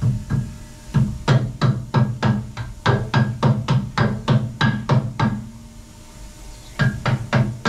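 A red mallet tapping Darton MID cylinder sleeves down into an aluminium LS engine block: a steady run of dull knocks, about three a second, that pauses about five seconds in and starts again near the end.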